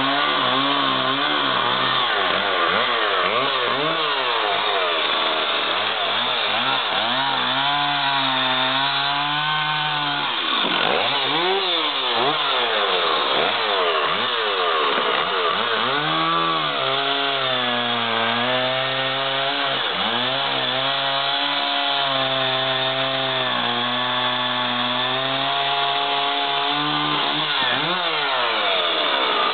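Stihl 044 two-stroke chainsaw running at high revs, cutting through a thick cypress log. From about ten seconds in, the engine pitch dips and climbs back up again and again.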